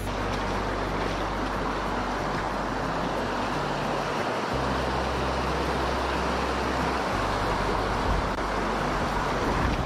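Mountain stream rushing and splashing over boulders in shallow rapids, a steady loud wash of water noise.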